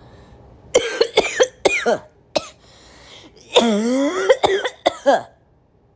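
A woman's congested, chesty coughing fit, raspy and partly voiced. It comes in two runs: several quick coughs starting about a second in, then a longer run of coughs around the middle that stops about a second before the end.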